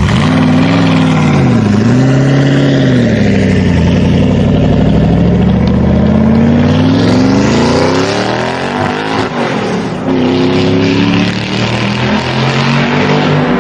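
Car engine revving, starting abruptly. Its pitch dips and rises twice, climbs slowly, falls away about nine seconds in, then rises again.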